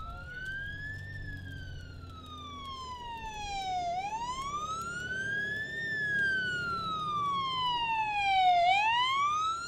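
Emergency vehicle siren sounding a slow wail, its pitch rising and falling in a repeating cycle of about five seconds, getting louder toward the end.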